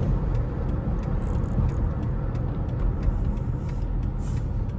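Chrysler 300 SRT8's Hemi V8 and tyre noise heard from inside the cabin as a steady low rumble while cruising at an even speed.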